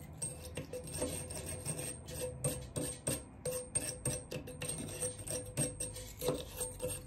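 Husky 6-in-1 wire pipe brush scraping and rubbing in short, irregular strokes, a few each second.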